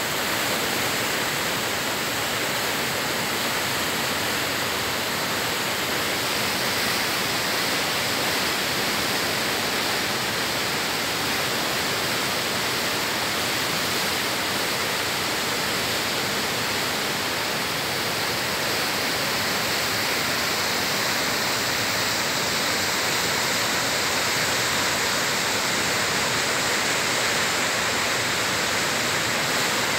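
Waterfall in flood after heavy rain, swollen water pouring down over rock in a steady rush that does not let up.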